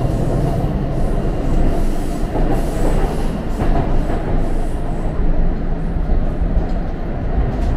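Tehran Metro train running, heard from inside a passenger car: a steady loud rumble of wheels on the rails with a low hum underneath.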